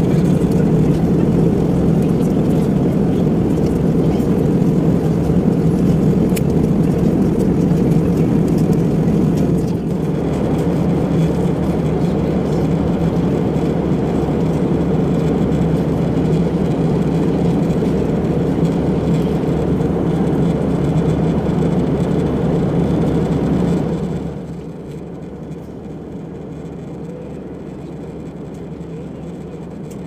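Steady drone of jet engines and rushing air, heard inside an airliner cabin in flight. It drops a little in level about ten seconds in and drops more sharply late on.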